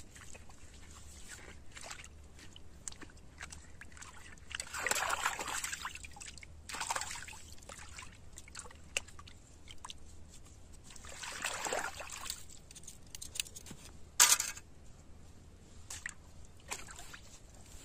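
Water sloshing and splashing in a few swells about six seconds apart, with small clicks in between and one short sharp knock near the end.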